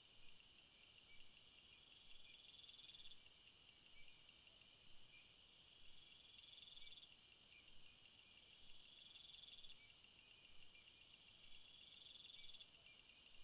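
Faint chorus of several insects: a high chirp repeating about once a second that becomes a steady trill, a lower trill swelling every couple of seconds, and a very high buzz that grows louder midway and cuts off near the end.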